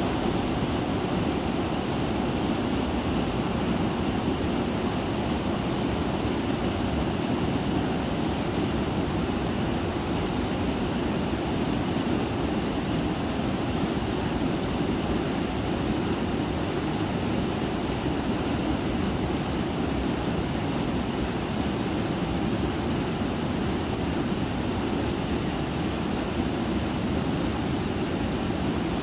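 Small mountain stream flowing, a constant even rush of water with no breaks.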